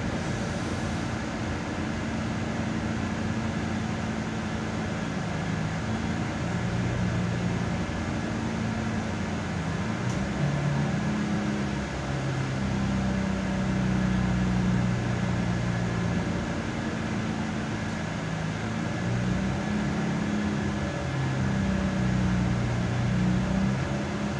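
Steady hum inside an SA139 diesel railcar standing at a station: its engine and auxiliary equipment idling, with low tones that shift slightly in pitch about halfway through.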